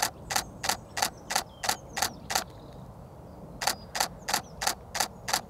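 Canon 80D DSLR shutter firing in quick repeated shots, about three sharp clicks a second. A run of eight clicks, a pause of about a second, then six more.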